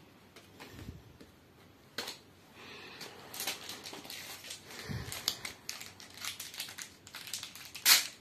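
Panini FIFA 365 trading cards and the plastic pages of a card binder rustling and clicking as they are handled, growing busier from about three seconds in. Near the end a foil card packet is torn open with a loud crinkle.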